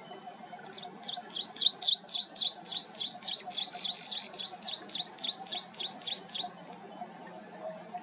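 Chestnut munias chirping at the nest: a fast, even series of short, high chirps, about three or four a second, that starts about a second in, is loudest at first and fades out after about five and a half seconds.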